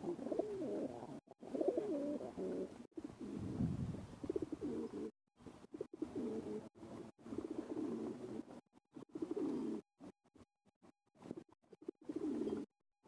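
Racing pigeon cooing: a series of wavering, low-pitched coo phrases, each a second or two long, with short gaps between them.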